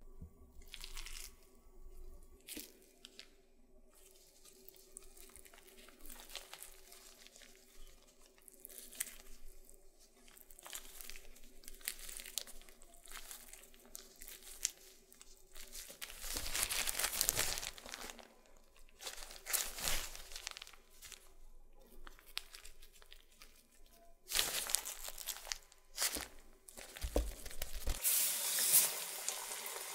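Gloved hands working a raw ground-meat and vegetable filling and stuffing it into a deboned chicken wing: wet squishing and the crinkle of plastic gloves in irregular bursts. Near the end the stuffed wing goes into hot oil and starts to sizzle.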